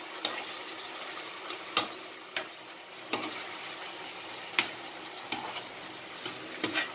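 Ground beef in tomato juice sizzling steadily in a frying pan while a metal spoon stirs it, scraping and clinking against the pan about seven times.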